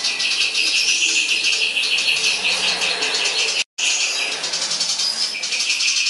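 Caged sirtu songbird singing a fast, unbroken, high chattering song in the 'konslet' style, filled with mimicry of fighting house sparrows. The song cuts out completely for a split second a little after halfway, then carries on.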